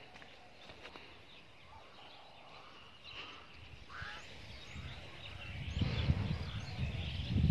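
Domestic fowl calling faintly in the background of a farmyard. Over the last two seconds a low rumble builds up and grows louder.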